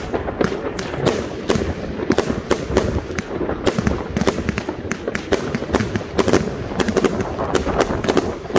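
Funke Corolla-Blue 30 mm compound firework firing its shots one after another: an irregular run of launch thumps and bursting cracks, several a second.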